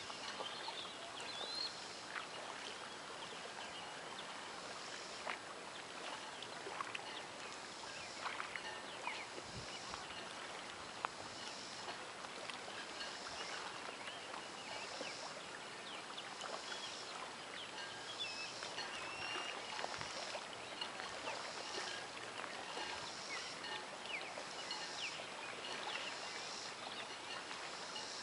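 Waterfront ambience at a bay: a steady wash of small waves lapping, with many small ticks and splashes and scattered short bird chirps. A faint high pulse repeats about once a second throughout.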